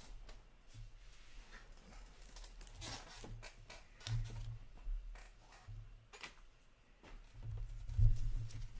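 Handling noises of trading-card boxes and packaging on a tabletop: a few short scattered rustles and taps, with a heavier bump about eight seconds in.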